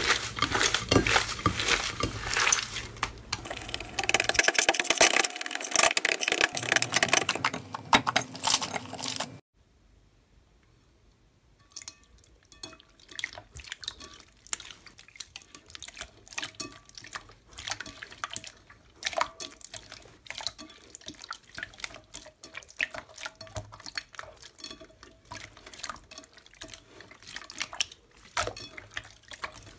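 Hands squeezing and kneading thick slime, a dense run of loud crackling, squishing clicks. About nine seconds in it stops for a moment, then comes the softer, scattered wet clicking and squelching of hands pressing and pulling clear purple 'fake water' slime in a glass bowl.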